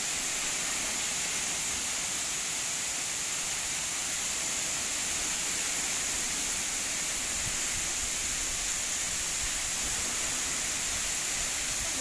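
Waterfall heard as a steady, unbroken rush of falling water, even in level throughout and brightest in the high range.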